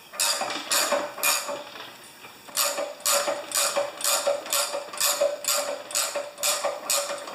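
Ratchet wrench clicking in short back-and-forth strokes as a valve fitting is unscrewed from a pressure washer's pump head. Three strokes, a pause of about a second, then a steady run of about three clicks a second.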